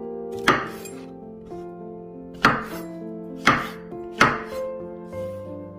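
Chef's knife chopping through button mushrooms and striking a wooden cutting board: four sharp chops at uneven intervals, over soft background music.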